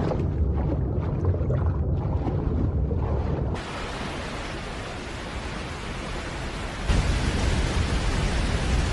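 A muffled underwater rumble with bubbling, cutting abruptly about three and a half seconds in to the steady roar of a large waterfall and churning river. The roar deepens and grows louder about seven seconds in.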